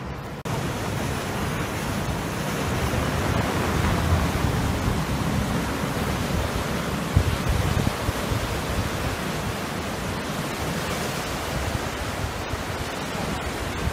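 Sea waves breaking and washing over shoreline rocks, a steady rushing noise, with wind rumbling on the microphone. It gets a little louder about half a second in.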